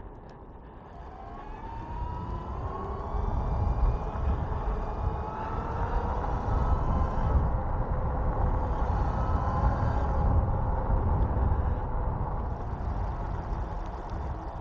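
Electric bike's motor whining, rising in pitch over the first few seconds as the bike speeds up, then holding steady. Wind rumbling on the microphone grows louder with the speed.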